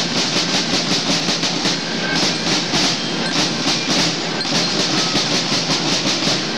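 Marching band snare drums playing a steady marching cadence, about five or six strokes a second.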